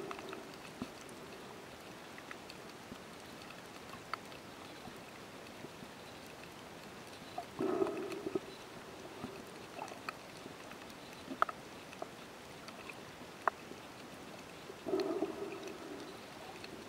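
Underwater sound on a shallow coral reef, recorded with the camera held below the surface: a steady faint hiss scattered with sharp clicks, and three louder low bursts about seven seconds apart.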